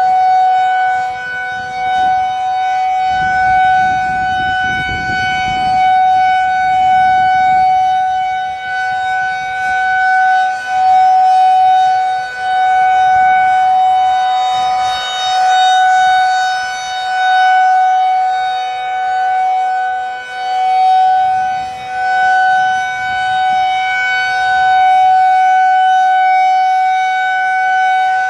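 Federal Signal 2001-DC rotating electromechanical siren sounding a steady tone. Its loudness swells and fades about every two and a half seconds as the siren rotates.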